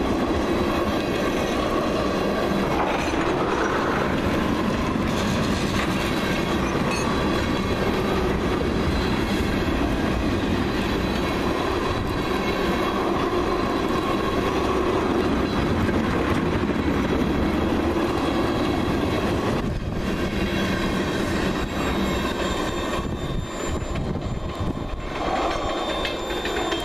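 Freight train of tank cars rolling past, wheels clicking over the rails with a faint high wheel squeal.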